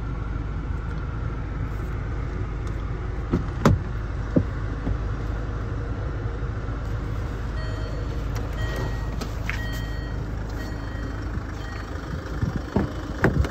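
The 2015 Land Rover Discovery Sport's 2.2-litre four-cylinder diesel idles with a steady low rumble, heard from inside the cabin. A sharp click comes about three and a half seconds in, a few short electronic beeps come about two-thirds of the way through, and a few clicks come near the end.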